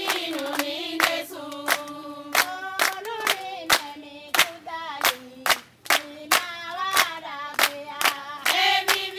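A group of women singing together and clapping their hands to a steady beat, a few claps a second.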